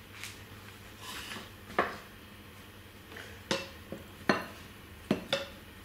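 Wooden spoon knocking and scraping against a ceramic bowl as a small child stirs dry almond meal, giving a string of sharp, irregular knocks that come more often in the second half.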